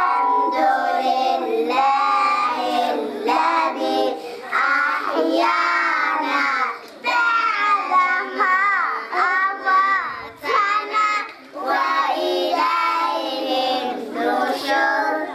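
Young girls singing a nasheed together into a microphone, in phrases with short breaks between them.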